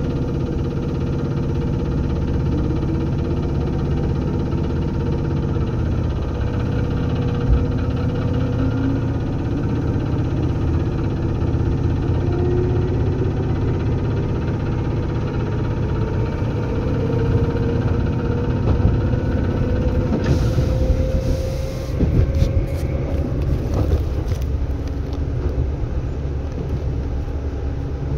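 Seibu 2000 series electric train running, heard from inside the car: a steady heavy rumble with a motor and gear whine that rises in pitch as the train gathers speed. From about 20 s in come scattered sharp clicks and knocks.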